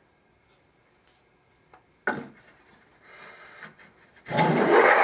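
A wooden hand plane cutting a full-width shaving along a clamped board. A sharp knock comes about two seconds in, then a short light scrape, and near the end one loud planing stroke of blade and sole rasping along the wood.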